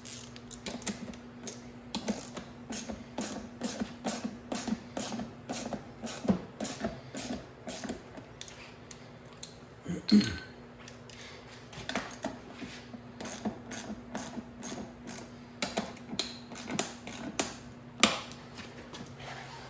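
Quarter-inch socket ratchet clicking in quick runs as bolts are tightened down, with short pauses between runs. A louder thump comes about halfway through.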